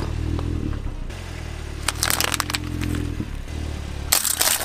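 Car engine idling low while its tyre rolls over and crushes objects. There is a crunching crackle about two seconds in, and a louder burst of crackling near the end as small plastic cups are crushed.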